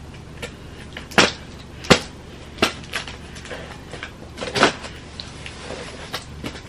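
Scissors cutting and scraping along the packing tape of a cardboard box, with short scratchy scrapes and knocks on the cardboard about once a second.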